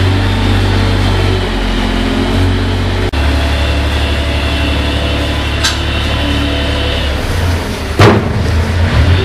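JCB 403 compact articulated wheel loader's diesel engine running as it works, its pitch shifting a couple of times. A sharp knock about eight seconds in is the loudest sound.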